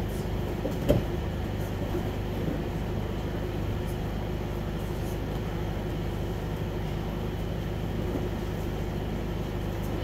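Steady hum of running fans filling a training hall, with one thump about a second in as a body lands on the padded mats during throw drills.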